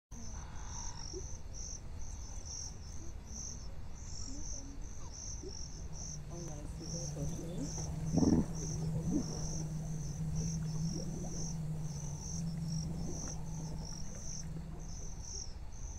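Insects chirping in a steady rhythm of short, high chirps, about two a second, over a low rumble. A low steady hum comes in about six seconds in, and a single thump sounds about eight seconds in.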